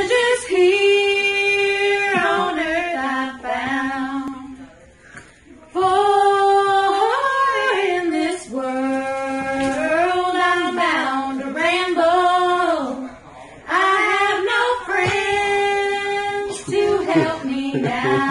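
Female voices singing a cappella, with long held notes rising and falling. The song comes in three phrases, broken by short pauses about five seconds in and about thirteen seconds in.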